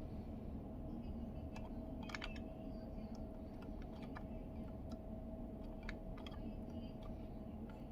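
Light, irregular clicks and taps of small plastic parts being handled, as in taking apart a car's multimedia commander control knob, over a steady background hum.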